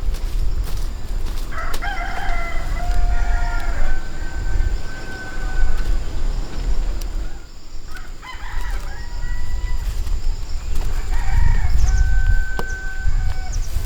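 Rooster crowing three times, each crow ending in a long held note, over a steady low rumble.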